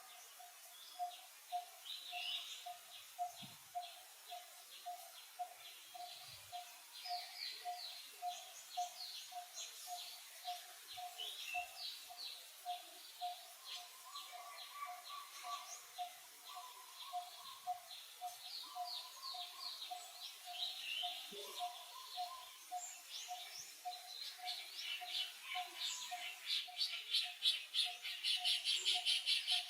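Wild birds chirping, with short sweeping calls over a steady low note repeated about twice a second. Near the end a rapid, buzzy pulsing sound comes in louder.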